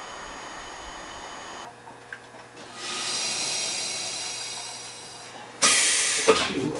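Stationary electric railcar's air and auxiliary equipment: a steady hiss, then a sudden loud blast of air near the end. A click follows, and a whine rises in pitch as an onboard motor spins up.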